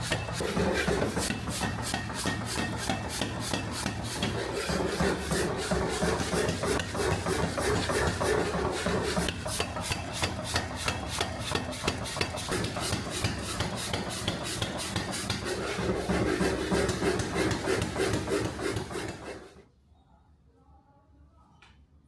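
Steel being rasped by hand with a file or abrasive in rapid, even back-and-forth strokes that stop near the end, followed by a single sharp click.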